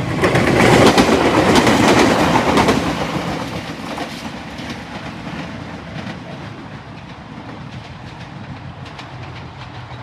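Joshin Electric Railway train passing over a level crossing, its wheels clacking over the rail joints. It is loudest for the first three seconds, then fades steadily as the train moves away.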